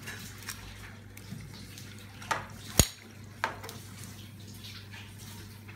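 Metal tongs clinking against a pot of frying oil as fried lumpia shanghai are lifted out and set down, with a few sharp clanks, the loudest nearly three seconds in, over the steady sizzle of the hot oil.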